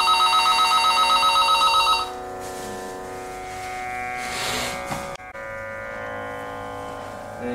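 Electronic telephone ring: a loud, fast warbling two-tone trill lasting about two seconds. After it, a steady musical drone of held tones carries on.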